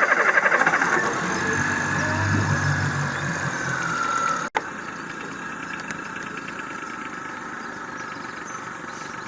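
An engine starts up and runs with a fast, even firing rhythm, its pitch falling over the first few seconds as it settles. It cuts off abruptly about four and a half seconds in, and an engine runs on more quietly and steadily.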